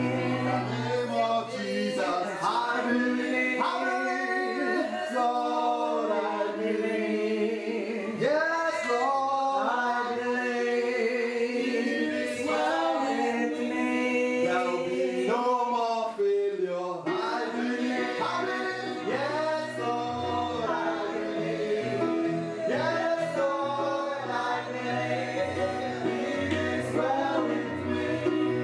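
Gospel song with several voices singing together over steady instrumental accompaniment.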